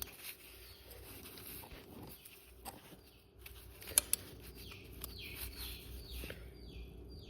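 Quiet hand-tool work: a few sharp metallic clicks as an 8 mm wrench snugs down a small bolt on a dirt bike's engine, two close together about four seconds in. Faint high falling chirps in the background in the second half.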